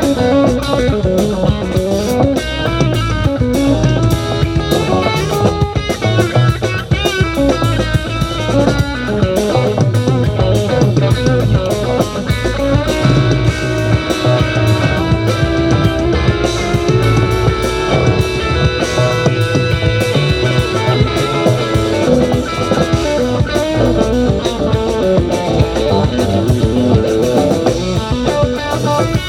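Live band playing an instrumental jam: electric guitar lines over a drum kit and bass, with no vocals.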